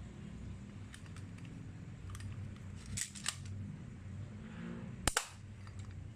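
Airsoft pistol clicking as it is handled, with a few light mechanical clicks and then a louder sharp double snap about five seconds in, like a shot fired.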